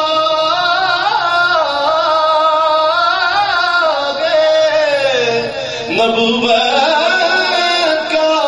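A man sings a devotional piece in long, ornamented melismatic lines that bend up and down in pitch, over a steady held drone note.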